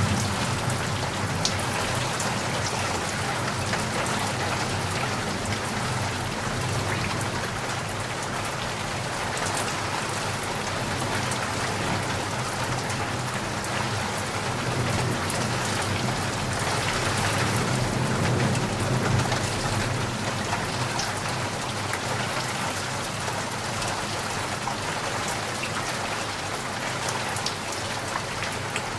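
Steady, dense rain falling, with a low rumble that swells and fades around the middle.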